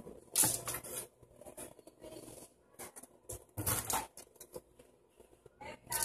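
Handling noises from tools being moved about on a workbench: scattered light clicks and two short bursts of scraping and rustling, about half a second in and again just under four seconds in.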